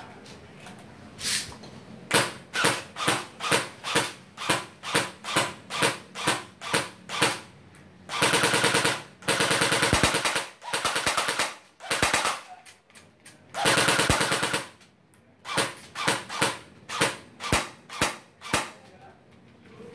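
Double Eagle UMP45 airsoft electric gun (AEG) firing: single semi-automatic shots about twice a second, then several short full-auto bursts about halfway through, then single shots again near the end.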